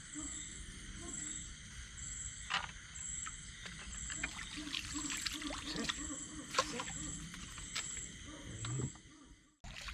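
Night insects calling: a high-pitched chirp repeating a little over once a second over a steady high buzz, with water splashing and sloshing from wading in the shallows. The sound cuts out briefly near the end.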